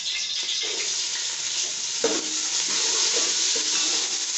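Sliced onions sizzling in hot oil in a metal pot as a spatula stirs them. A sharp knock about two seconds in, after which the sizzling is louder.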